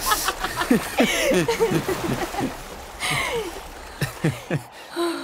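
Sound-effect passage of water sloshing and splashing, with splashes about one and three seconds in, under a quick run of short squeaky calls that each fall in pitch.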